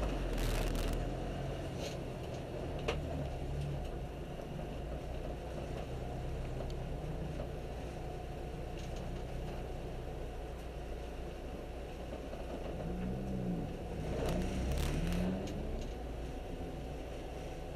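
Honda K20 four-cylinder engine in a Civic EG with an aftermarket header and catback exhaust, heard from inside the stripped cabin at low revs while the car rolls slowly. The revs rise and fall a couple of times near the end.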